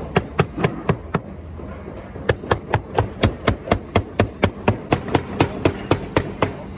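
Rapid, regular blows of a heavy meat cleaver chopping cooked meat on a wooden board, about four to five strokes a second. The chopping stops for about a second early on, then goes on.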